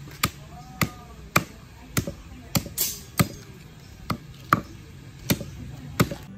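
Long-bladed knife chopping raw meat on a round wooden chopping block: about eleven sharp, slightly irregular strikes, roughly two a second.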